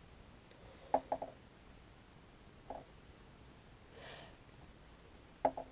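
A few faint clicks and taps from hands working thread and tools at a fly-tying vise, about a second in, near three seconds and near the end, with a short breathy hiss about four seconds in.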